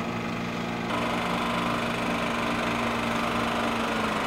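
Small outboard motor running steadily, getting louder about a second in.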